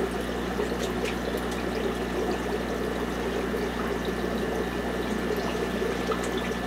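Steady bubbling and trickling of water in a running fish tank, with a faint steady hum underneath.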